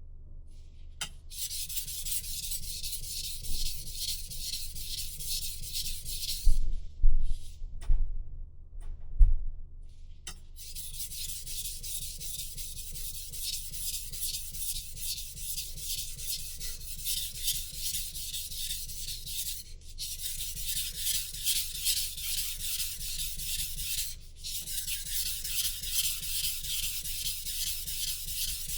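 Knife being sharpened: the blade scrapes in rapid repeated strokes, with a break about a quarter of the way in marked by a few low knocks.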